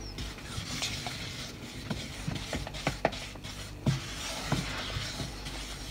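A spoon stirring melting chocolate in a bowl set over steaming water, giving scattered light taps and scrapes against the bowl over a faint hiss.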